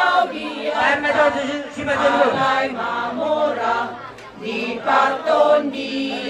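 A group of women singing together, a choir-like chant of several voices in sung phrases with short breaks between them.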